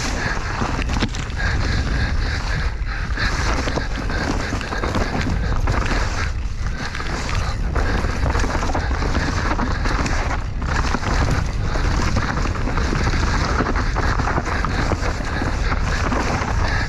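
Mountain bike descending a rough enduro trail: wind rushing over the microphone, with tyre noise and frequent knocks and rattles from the bike over bumps.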